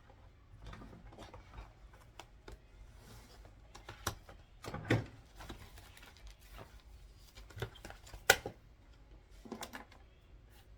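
Desk work sounds: paper being handled and sorted, with scattered taps and clicks. There is a duller knock about five seconds in and one sharp click, the loudest sound, about eight seconds in.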